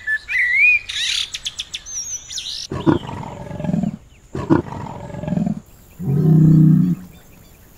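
A run of different animal calls: high whistles and chirps, then two low roars of about a second each, then a loud pitched call near the end.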